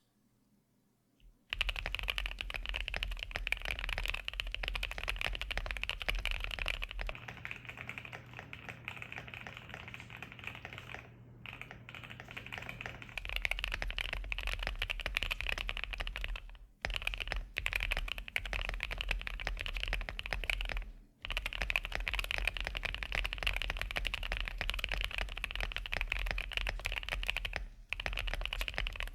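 Fast, continuous typing on a qwertykeys QK65 mechanical keyboard with lubed and filmed Prevail Nebula switches, a POM plate, case, plate and PE foam and PBT keycaps. The typing starts about a second and a half in and breaks off briefly a few times.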